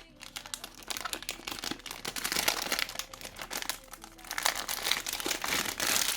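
Thin plastic wrapping crinkling and crackling as it is handled and pulled off a speedcube, with irregular small clicks.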